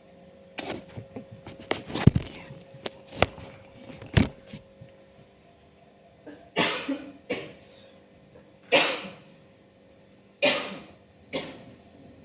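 A few sharp kitchen knocks and clatters, then a woman coughing five times in short fits, in two pairs and a single.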